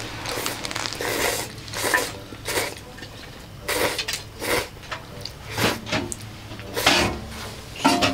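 Bowls and chopsticks being handled at a meal table: a string of about nine short clatters.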